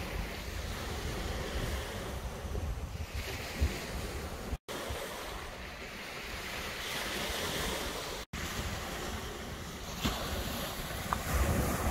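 Small waves breaking and washing up a shingle beach, with wind buffeting the microphone. The sound drops out for an instant twice.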